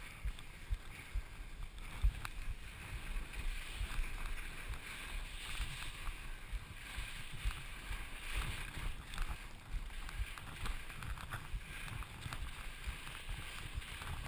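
Skis hissing and scraping over snow during a descent, with wind buffeting the microphone in uneven low thumps.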